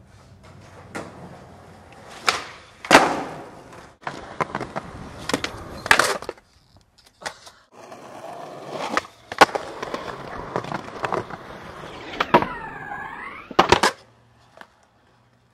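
Skateboard wheels rolling on pavement, broken by about six sharp clacks of the board popping and landing. Near the end a scrape that dips and then rises in pitch, the board sliding on a ledge, ends in a last clack.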